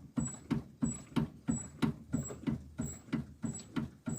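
Jeep front suspension being rocked by hand, giving a steady rhythmic clunk with a creak about three times a second.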